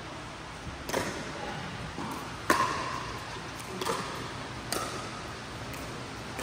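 Pickleball paddles striking a plastic pickleball back and forth in a rally: a run of sharp pops about once a second, the loudest about two and a half seconds in, ringing briefly in a large hall.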